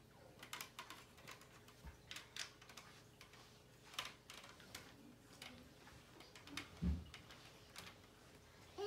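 Faint, scattered clicks and taps of toy ark pieces being handled and fitted together, with one soft thump near the end.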